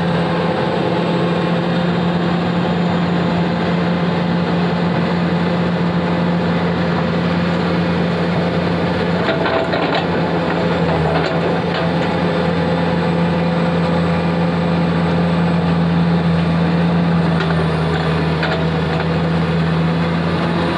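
Diesel engine of a Komatsu PC450 excavator running steadily with a constant hum while it swings and loads, with a few faint knocks near the middle.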